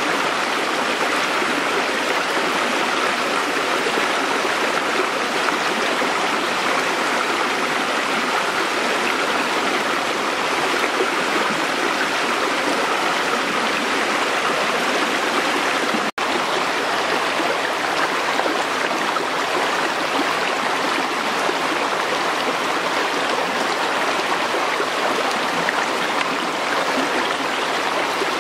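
A fast stream rushing over rocks, giving a steady, dense splashing. The sound drops out for an instant a little past halfway, then carries on.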